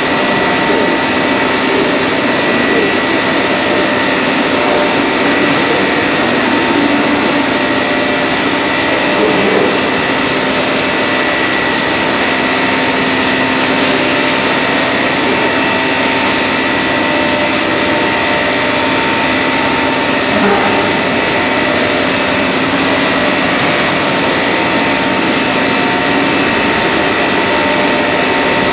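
Steady machine noise, a loud even whir with a constant high hum running through it, unchanging throughout.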